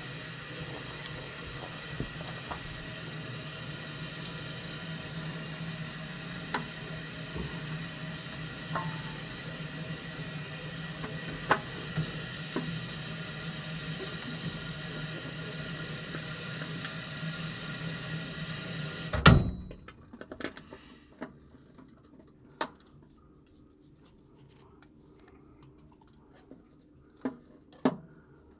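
Water running steadily, cutting off abruptly with a loud thump about 19 seconds in, followed by a few light knocks.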